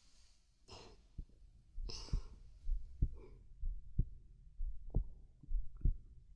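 Human heartbeat heard close up: low, dull lub-dub thumps at a steady rhythm of about one beat a second, with a couple of soft breaths in the first two seconds.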